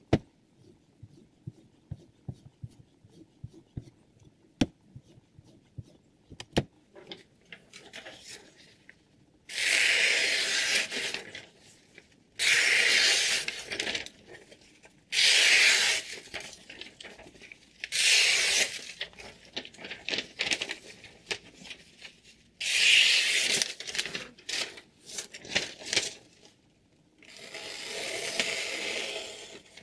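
A sheet of paper being sliced against a freshly sharpened kitchen knife blade held in a sharpener's clamp: six long slicing strokes of about a second and a half each, a paper-cutting test of the edge. Before them come a few seconds of light clicks and taps from handling the clamp.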